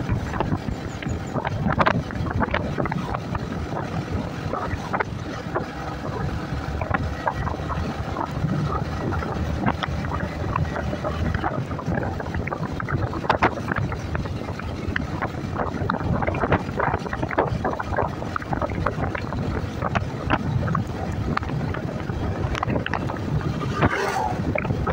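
Wind buffeting the microphone over the running engine and road noise of a Yamaha scooter being ridden along a road, with constant rumble and crackle.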